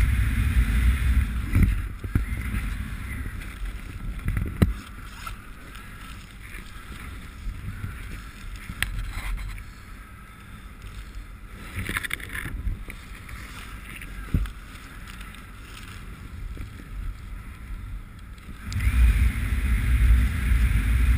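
Wind rushing over the camera microphone under an open parachute canopy: a low rumble, loud for the first couple of seconds and again shortly before the end. In between it is quieter, with a few scattered knocks and rustles from the gloved hands on the steering toggles.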